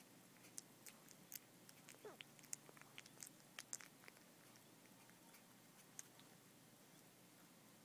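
Faint wet clicks and smacks of newborn puppies suckling at their mother, scattered through the first half and then fading off, with one short falling squeak about two seconds in.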